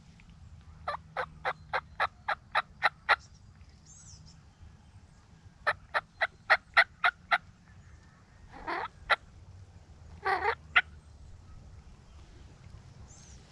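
Wild turkeys: two runs of sharp, evenly spaced hen-style yelps, each growing louder, then two gobbles near the end.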